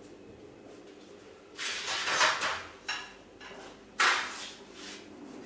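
Kitchen handling sounds from someone working at a counter: a noisy sliding sound about a second and a half in lasting about a second, a short knock, then another sharp sliding sound near the end that fades quickly.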